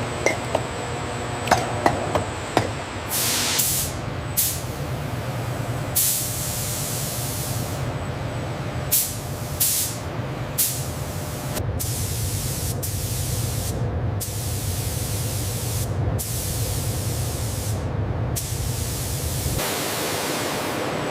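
Repeated bursts of hissing spray, some brief and some a couple of seconds long, over a steady low machine hum, with a few sharp clicks in the first few seconds. The hum drops away near the end.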